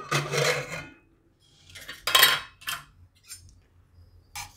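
Metal clattering and scraping as a pressure cooker is opened: its lid and a steel spoon knock and rub against the pot. The clatter comes in a loud burst at first, then several shorter ones and a few light clicks.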